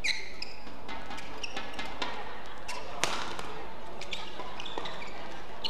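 Badminton rally: several sharp racket strikes on the shuttlecock, the loudest about three seconds in, with short squeaks of court shoes on the mat between them.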